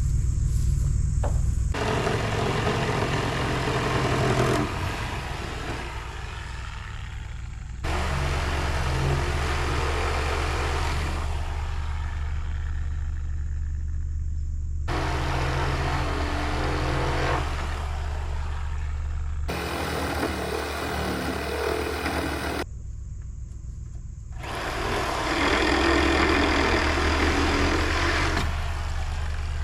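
A corded reciprocating saw cutting through nailed wooden framing, starting and stopping abruptly several times, over a steady low engine hum.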